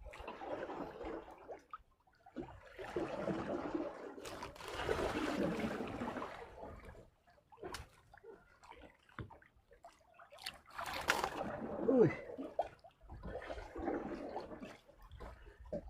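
Sea water splashing and sloshing around a small fishing boat in uneven surges, with scattered knocks and clicks. The loudest surge comes about two-thirds of the way through.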